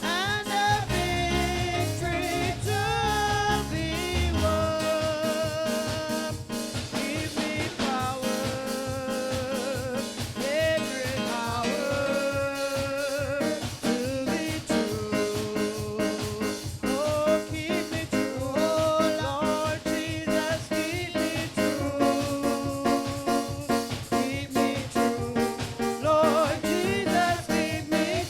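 Live gospel worship music: voices singing over a band with a steady drum beat. The deep bass drops out about four seconds in.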